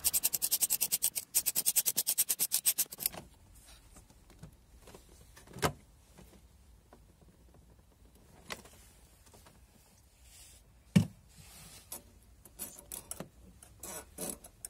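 Socket ratchet wrench clicking rapidly and evenly for about three seconds as it turns a nut at a car battery, in footage sped up four times. Then come scattered single knocks and clinks of the tool against the metal and plastic around the battery, the sharpest about eleven seconds in.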